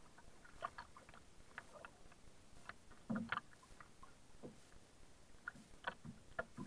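Small waves lapping against a plastic kayak hull alongside a pier piling, heard as faint, irregular taps and knocks, with a louder cluster about three seconds in.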